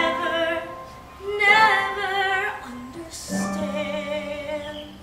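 A woman singing a slow musical-theatre solo in three phrases, holding the notes with vibrato; the middle phrase is the loudest.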